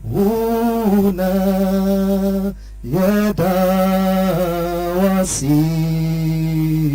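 A man's voice chanting slow, long held notes in prayer, five phrases with short breaths between them and small slides in pitch, over a faint low hum.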